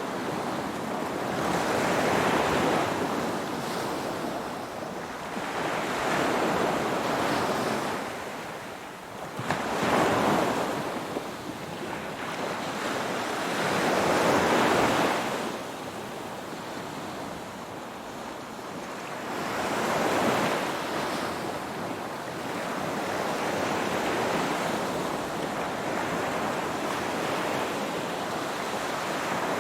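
Ocean surf: waves breaking and washing in, each one swelling up and falling away, about every four to six seconds.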